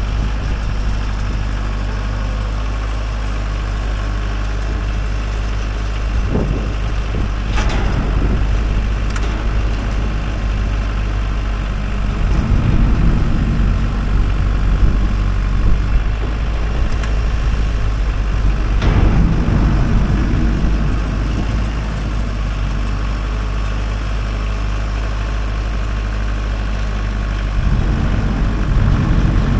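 Case IH Farmall 45A compact tractor's diesel engine running steadily, growing louder in three stretches as the tractor moves and works its front loader. A few sharp knocks come through in between.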